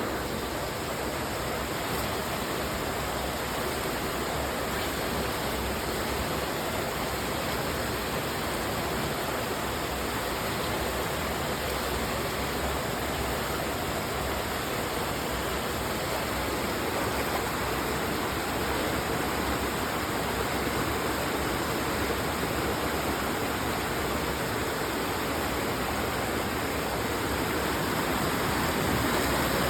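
Creek water rushing steadily, an even hiss of flowing water with no breaks, growing slightly louder near the end.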